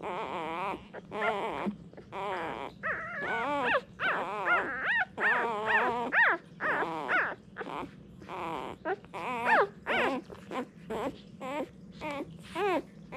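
Four-day-old English Springer Spaniel puppies squeaking and whimpering while nursing. The short, high-pitched cries rise and fall in pitch, come several a second, and often overlap from more than one puppy.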